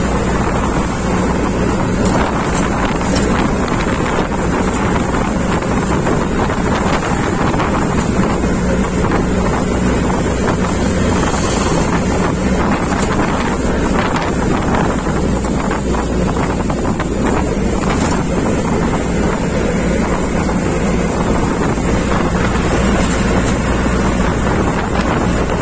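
Wind buffeting the microphone with steady road and engine noise from riding in a moving vehicle.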